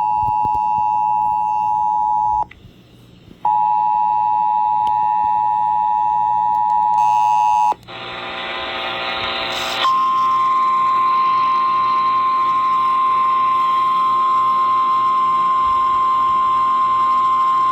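Emergency Alert System two-tone attention signal broadcast over FM radio, the steady dual-pitched alert of a required monthly test. It cuts out for about a second near the start, then resumes. After it come about two seconds of hissing static and then a single steady higher-pitched tone held for about nine seconds.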